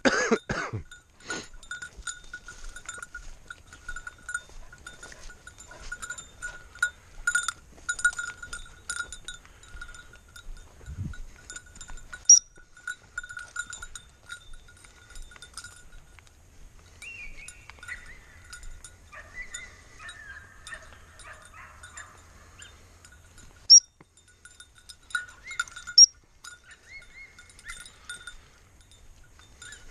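Small bell on a springer spaniel's collar jingling continuously and unevenly as the dog quarters through the grass. Birds twitter briefly midway, and a few short, sharp, high chirps stand out.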